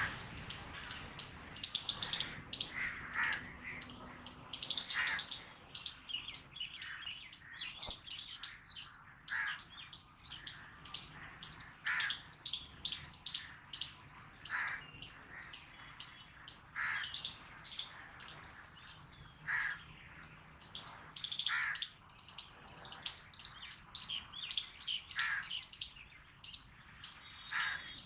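A squirrel barking: a long run of short, sharp calls, about two or three a second and irregularly spaced.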